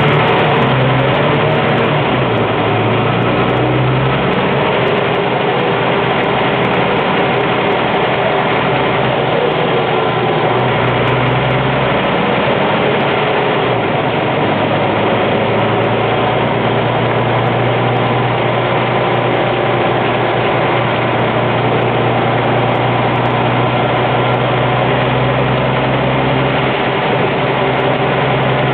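A Scania N94UB single-deck bus engine running, heard from inside the passenger saloon. A steady engine drone with a low hum whose pitch shifts a little now and then sits under a constant wash of cabin noise.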